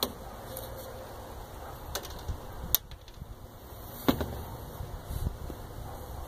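A few sharp knocks and taps over a low, uneven rumble of wind on the microphone, the loudest knock about four seconds in.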